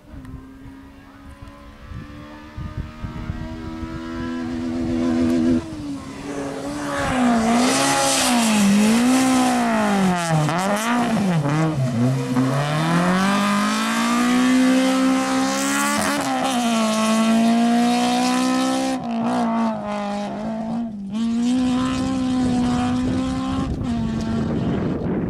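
Rally car engine at full effort on a gravel stage, its pitch climbing, dropping and climbing again as it accelerates, brakes and shifts through bends, with the rush of tyres throwing loose gravel. It comes in quietly, then is much louder from about six seconds in.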